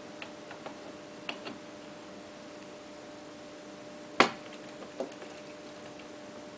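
A few scattered light clicks and two sharp knocks, the louder about four seconds in and a smaller one about a second later, over a steady low hum.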